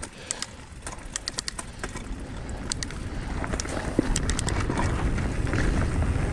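Mountain bike riding a dirt trail: knobby tyres rolling over dirt and dry leaves, with sharp clicks and rattles from the bike over rough ground, and a low rumble that builds from about halfway as the bike gathers speed.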